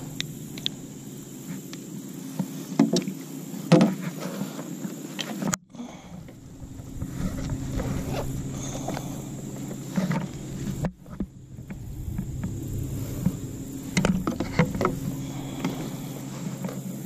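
Scattered knocks and clicks on a plastic sit-on-top kayak as a caught smallmouth bass is handled and laid on a measuring board, over a steady low hum. The sound drops out suddenly twice.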